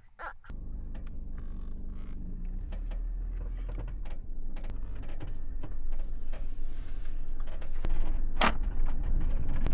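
Mercedes Sprinter camper van under way, its engine and road noise making a steady low hum that slowly grows louder, with light clicks and rattles and a sharper knock near the end.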